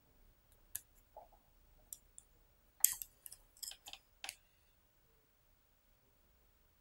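Light clicks and taps from small fishing tackle being handled on a wooden desk as silicone tubing is worked onto a float: about a dozen short clicks over the first four seconds or so, the loudest about three seconds in.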